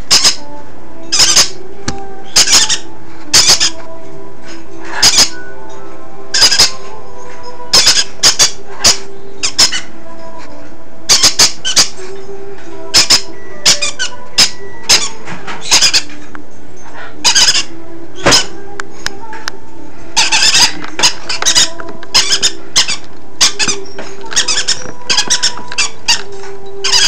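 Baby green-cheeked conure chicks giving short, shrill squeaks, singly or in quick pairs, repeated irregularly, over a steady background with faint held tones.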